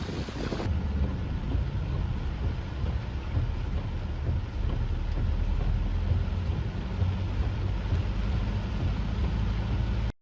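Typhoon wind and heavy rain, the gusts buffeting the microphone with a heavy low rumble. The sound shifts abruptly less than a second in and cuts off suddenly at the end.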